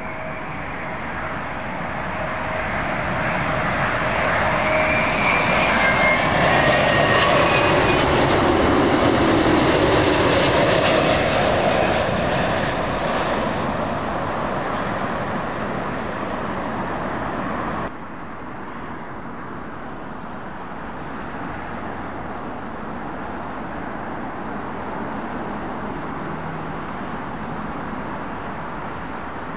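Airbus A330-900 airliner on final approach to land passing overhead: its engine noise swells to a peak with whining fan tones, then eases off. About two thirds of the way through it cuts off abruptly to the quieter, steady sound of the next arrival, a Boeing 757 freighter, still some way off.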